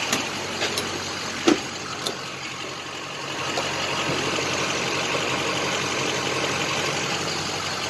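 Gas pump nozzle clicking a few times as it is handled in the truck's filler neck, then from about three seconds in a steady hiss of fuel flowing through the nozzle into the tank, over a low hum.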